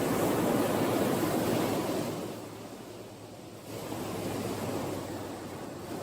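Sea waves breaking and washing up the shore. One wave's wash fades about two seconds in, and another wave surges in just before four seconds and ebbs away.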